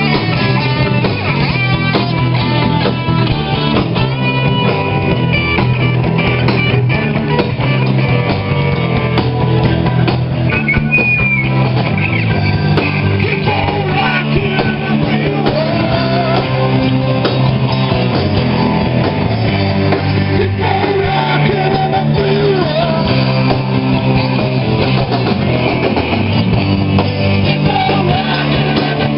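A rock band playing live: electric guitar and drums, with singing from about halfway through.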